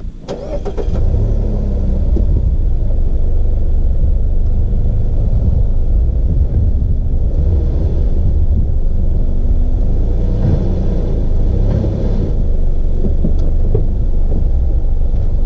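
A compact SUV's engine running under throttle with a heavy, steady low rumble as the driver tries to drive the car off the rocks and out of the sand where it is stuck.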